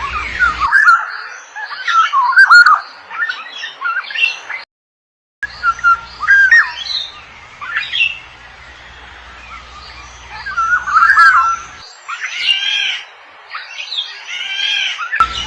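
Black-naped orioles calling in a rapid run of short chirps and squawks, with a brief silent gap a little under five seconds in.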